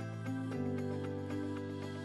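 Background music: soft instrumental music with sustained chords and a steady pulse.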